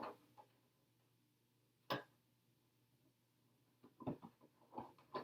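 Near-quiet handling sounds as a trim sticker is applied to an RC truck body: one sharp click about two seconds in, then a few light taps and rustles near the end.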